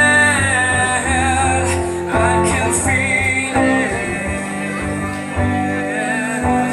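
Rock song with guitar and a sung vocal line of long held notes with vibrato.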